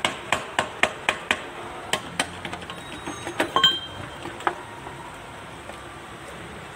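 Sharp metal-on-metal taps on the Kubota B6001 tractor's transmission shift cover, a quick run of about four a second, then scattered clinks and rattles as the cover is worked loose and lifted off.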